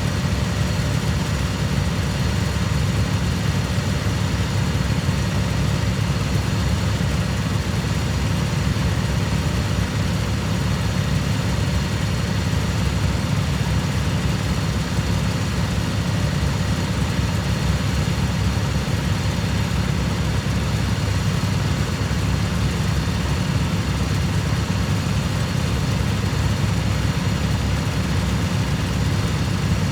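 Cub Cadet lawnmower engine running at a steady, unchanging speed.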